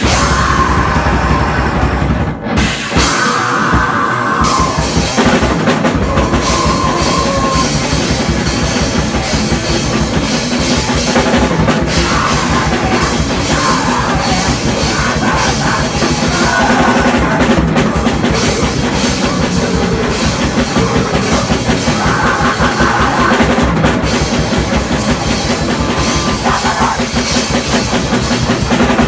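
A rock band playing a song live, with the drum kit to the fore and steady, dense drumming under the other instruments.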